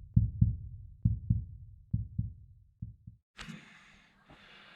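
Heartbeat sound effect: paired low thumps about once a second, getting fainter and stopping about three seconds in. A click then follows, with faint room noise.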